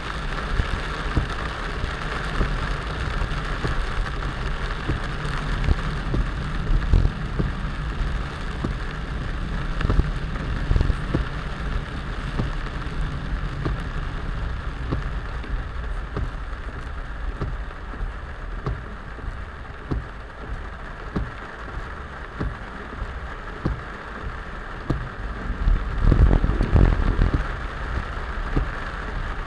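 Rain falling steadily in a tropical downpour, with many individual drop impacts heard throughout. There is a louder low rumble for a second or so near the end.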